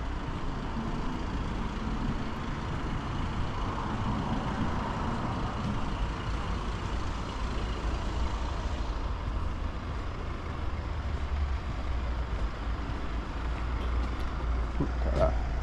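Road vehicle noise: a steady low rumble, swelling for a few seconds about four to six seconds in, with a brief higher sound near the end.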